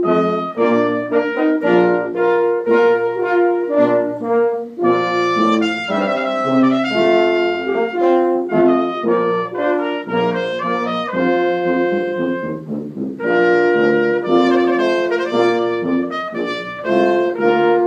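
Brass ensemble of trumpet, trombones and tuba playing a piece together, the parts sounding in chords that change from note to note.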